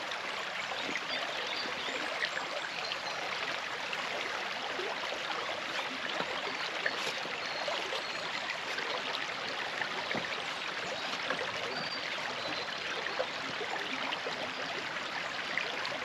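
Shallow forest stream trickling steadily over stones close by.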